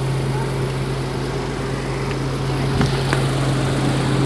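Heavy diesel engine running steadily at a constant pitch, with two faint clicks about three seconds in.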